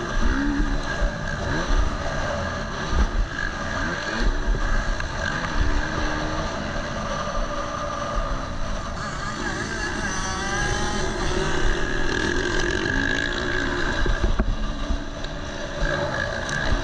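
KTM 250 SX-F four-stroke single-cylinder motocross engine racing on the track, its revs rising and falling over and over as the rider works the throttle and gears, with low thuds underneath.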